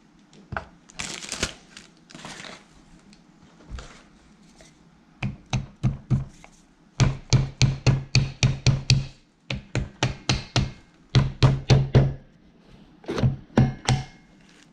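Socket ratchet clicking in quick runs of evenly spaced clicks, about four or five a second, as nuts on a motorcycle cylinder head are turned, after a short rustle of a plastic bag.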